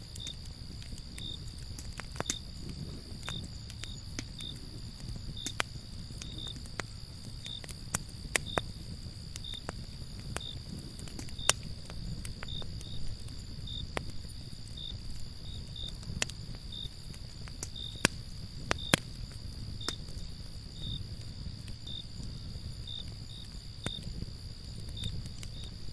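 Small wood campfire crackling, with scattered sharp pops. Behind it is a steady high-pitched whine and a short high chirp that repeats roughly once a second.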